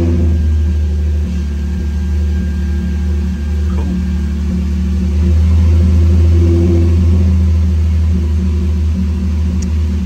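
Hyundai Genesis Coupe 3.8 V6 engine idling steadily just after starting, on its first run after a timing chain replacement, heard from inside the cabin. The idle swells slightly about five seconds in, then settles.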